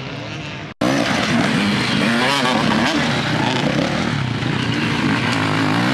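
Enduro dirt bike engines revving. After a short dropout about a second in, a nearby bike is much louder, its pitch rising and falling as the rider works the throttle.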